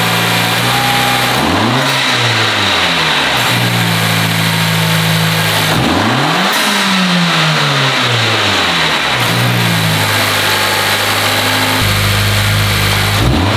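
Honda Civic's 1.5-litre turbocharged four-cylinder, fitted with a PRL high-volume intake, revved several times while stationary. It rises quickly and falls back to idle each time: about two seconds in, a bigger rev about six seconds in, a smaller one near nine seconds, and another starting at the very end.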